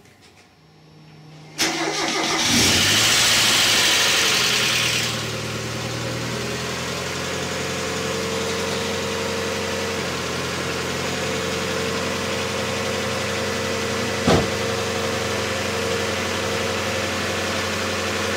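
1992 Mazda Miata's 1.6-litre twin-cam four-cylinder cranked on the starter and catching about a second and a half in, first running loud with a clatter of noisy hydraulic lifters while the fresh oil comes up to pressure, then settling at about five seconds into a steady idle. A single sharp click about fourteen seconds in.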